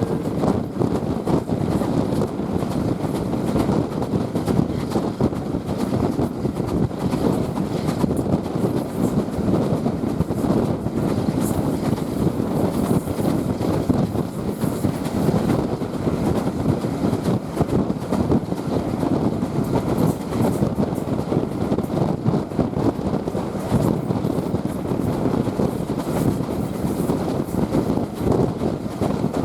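Steam-hauled passenger train running along the line, heard from aboard: a steady rumble of the coach's wheels on the rails with a dense patter of small knocks.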